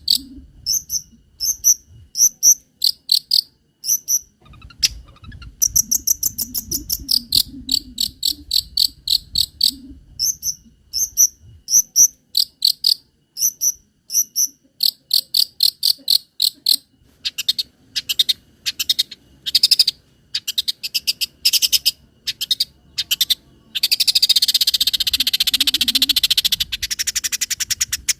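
Long-tailed shrike (cendet) singing: fast runs of short, high, repeated notes in insect-like phrases with brief pauses between them, and a harsh scratchy stretch near the end.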